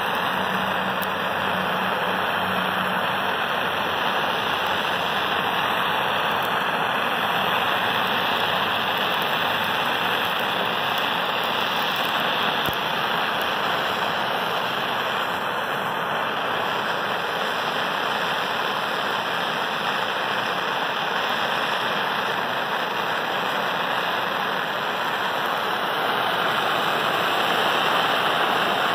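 Handheld gas torch burning, its flame giving a steady hiss.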